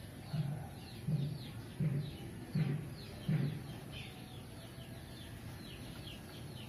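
Birds calling in the background: many quick, high, falling chirps throughout, and five low, evenly spaced calls about 0.7 s apart in the first half.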